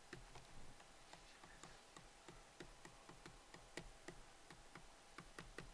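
Faint, irregular ticks of a digital pen tapping and skating on its writing surface while handwriting, several clicks a second.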